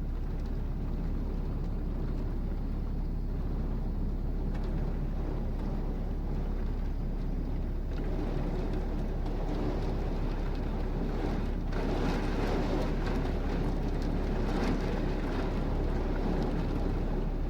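Heavy rain pouring down in a thunderstorm, with a steady low rumble of wind on the microphone. The downpour grows louder about eight seconds in and again a few seconds later.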